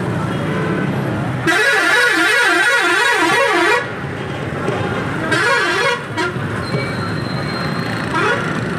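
Decorated passenger bus's multi-tone musical horn, warbling up and down about four times a second for a couple of seconds, then again briefly about five seconds in. Under it runs a steady hum of engines and traffic.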